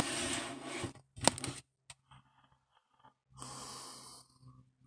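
Faint handling of a 3D-printed plastic toy vehicle: a short cluster of light clicks about a second in. A soft breathy rustle comes a couple of seconds later.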